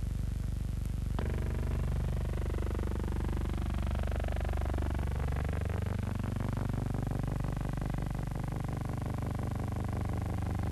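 Steady engine drone with a rapid pulsing beat, changing abruptly to a new, fuller drone about a second in.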